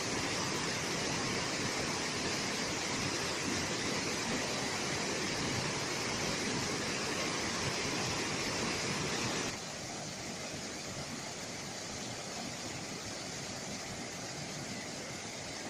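Steady rushing of white water cascading over rocks. About two-thirds of the way through it switches abruptly to a quieter, steady splashing of a small waterfall pouring into a pool.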